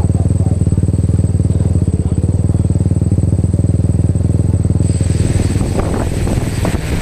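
Dirt bike engine idling steadily with an even, rapid pulse. About five seconds in, a rushing hiss joins and builds: the quadcopter's rotors spinning up and blowing air across the microphone.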